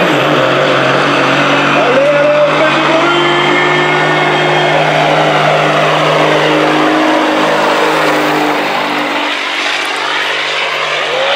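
Big-rig semi truck's diesel engine running hard under full load while it pulls a weight-transfer sled. The note is loud and shifts in pitch as the truck comes up close.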